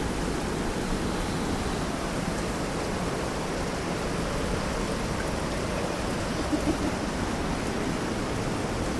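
Steady rushing of fast-flowing river water.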